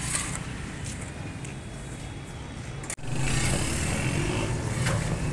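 Steady low rumble of street traffic, with a few faint clicks. The sound drops out for an instant about three seconds in.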